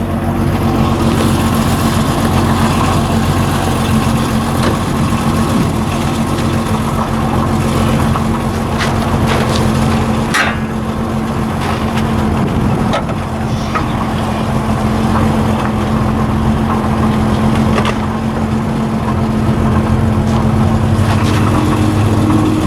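Car engine running steadily at a constant speed, with a few short knocks and rattles over it.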